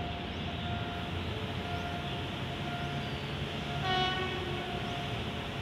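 A diesel locomotive's horn gives one short blast about four seconds in, over a steady rumble of road traffic.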